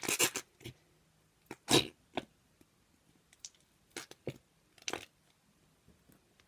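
Slime being squished and stretched in the hands, giving a series of short irregular pops and crackles. The loudest comes a little under two seconds in.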